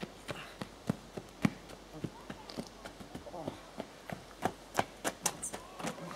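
Running footsteps on a dirt and grass forest path: quick, uneven thuds, about three a second.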